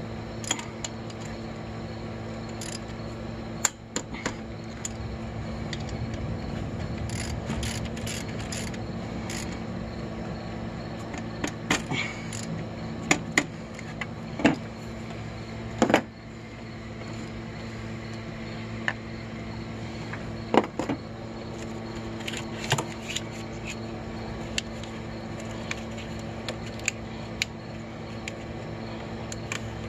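A steady mechanical hum, with scattered sharp clicks and knocks over it.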